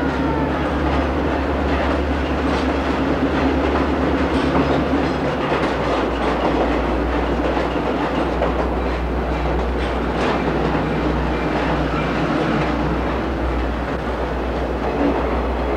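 Skunk Train passenger train rolling through a tunnel, heard from an open car: a steady rumble with the clatter of wheels on the rails.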